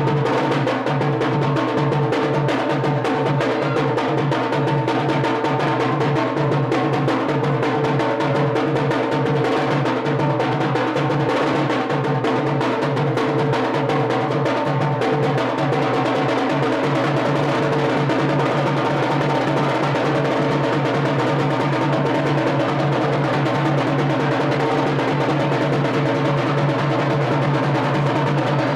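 Fast, steady drumming for a Yemeni bara' dance on a large double-headed drum and a small bowl-shaped drum, with a steady droning tone under the beat.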